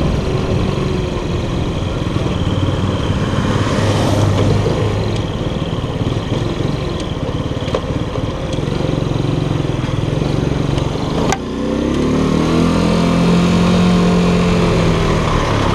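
Keller Crono 110 moped's small single-cylinder four-stroke engine running at speed, with wind rushing on the helmet-level microphone. About eleven seconds in there is a sharp click, and a deeper engine note then rises and falls as the moped passes close alongside a truck.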